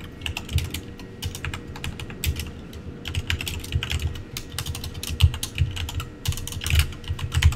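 Typing on a computer keyboard: a quick, irregular run of key clicks, each with a low thud.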